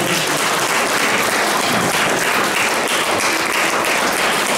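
Audience applauding steadily in a room, a dense patter of many hands clapping.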